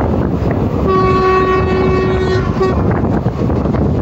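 Indian Railways locomotive horn sounding one long blast of about two seconds, with a brief break near its end, over the steady rumble, rail clatter and wind of a train running at speed through a station without stopping.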